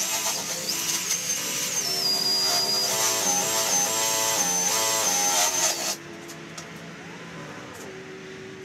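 Cordless drill driver spinning a wire wheel brush against the rusted steel of a car's wheel well to strip surface rust. The motor whine rises and falls in pitch as the trigger is eased, then stops about six seconds in.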